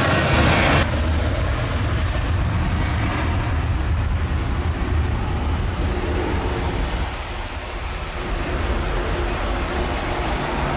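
Boeing 737-800 jet engines at takeoff power: a steady, loud roar with a deep rumble as the airliner accelerates down a wet runway and lifts off. The sound changes abruptly about a second in.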